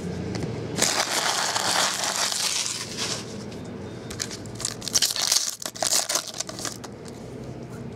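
Foil trading-card pack wrappers crinkling as they are handled, then a pack being torn open with sharp crackles of foil about five to seven seconds in.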